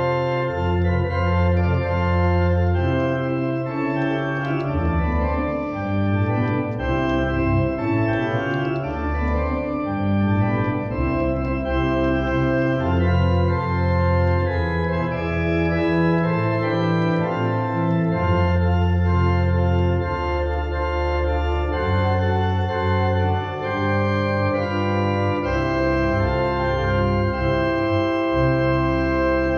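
Church organ playing a hymn: sustained chords over a bass line of long held low notes that move every second or two.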